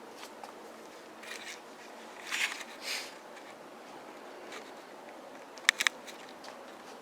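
Quiet room tone with a few soft rustles, then a quick cluster of two or three sharp clicks near the end.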